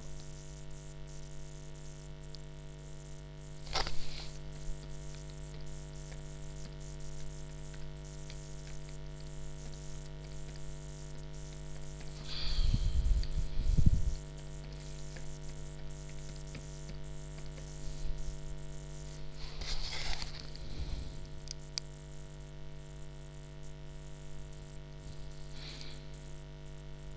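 Steady electrical hum with a faint hiss: open-microphone room tone. A few brief soft noises come through it, and a louder low rumble lasts about a second and a half, around twelve to fourteen seconds in.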